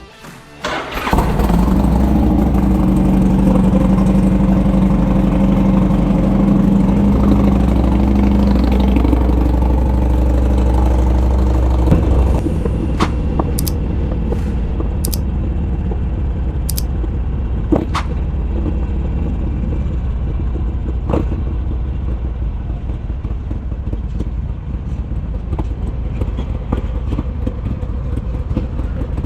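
Harley-Davidson Sportster Iron 883's V-twin, fitted with a Roland Sands Design 2-into-1 exhaust, starting about a second in and then running loud and steady. Around twelve seconds in the engine note changes and it keeps running, with a few sharp clicks after that.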